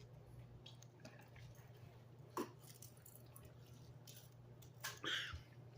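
Faint wet mouth sounds of eating: a sharp click a little past two seconds and a short squishy smack about five seconds in, over a low steady hum.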